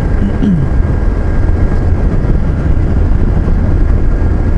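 Motorcycle on the move: steady low rumble of wind on the microphone over the running engine, with a short falling tone about half a second in.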